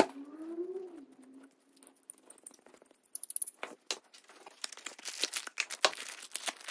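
Plastic bag crinkling and rustling as it is handled and opened, with light clicks of metal parts set down on bubble wrap. A brief wavering tone comes at the start.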